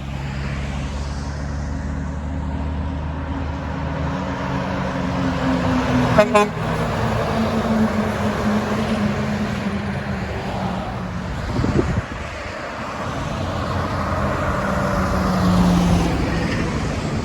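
Semi trucks passing on a highway, with a long air-horn blast sounding over the engine and tyre noise. A sharp crack comes about six seconds in.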